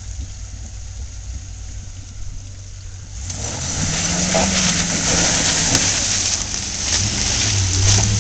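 A Land Rover's engine running low and steady as it drives through a creek. About three seconds in, a loud rush of splashing water breaks out and carries on to the end.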